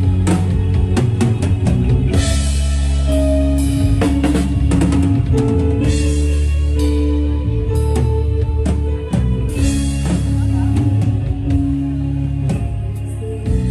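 Live band playing an instrumental passage: a drum kit with busy hits and fills over sustained keyboard chords, bass and electric guitar.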